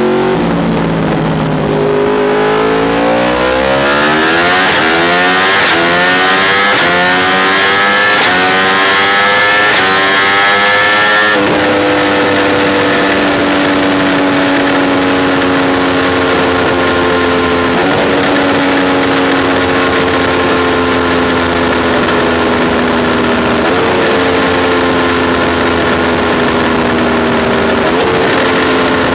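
Yamaha R1 crossplane inline-four through a Spark Grid-O exhaust, revving up steadily for about ten seconds. After an abrupt change it runs on with engine speed slowly falling, picking up briefly three times.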